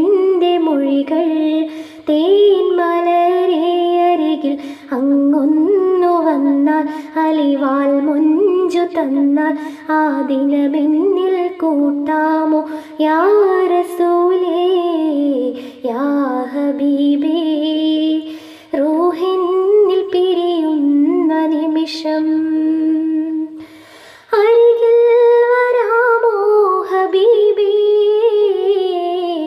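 A woman singing a Malayalam madh devotional song solo and unaccompanied: a slow melody of long, wavering held notes, with short pauses between phrases.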